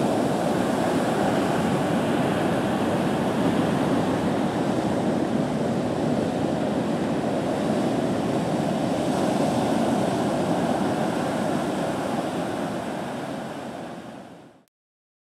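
Heavy ocean surf from a hurricane swell: waves breaking and white water rushing in a steady, continuous wash, fading out near the end.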